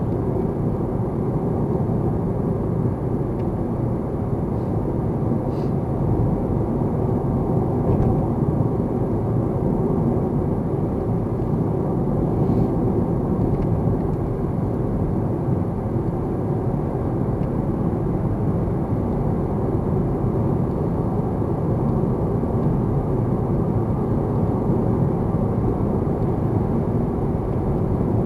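Steady road and engine noise of a car driving, heard from inside the cabin: a low, even rumble of tyres on the road with the engine beneath it.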